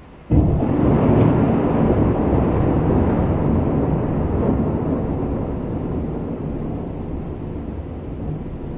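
Thunder in a rainstorm: a sudden clap about a third of a second in, then a long, loud low rumble that slowly dies away.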